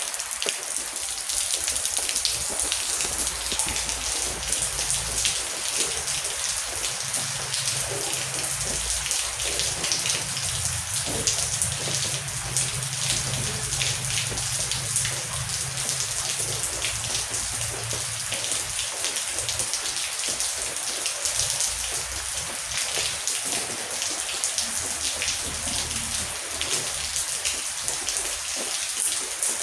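Steady heavy rain with dense drop patter, and a low distant rumble of thunder that swells through the middle and fades near the end.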